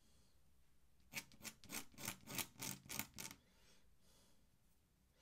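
Steel dip pen nib scratching on drawing paper in a quick run of about ten short strokes, roughly four or five a second, starting about a second in and stopping after about two seconds.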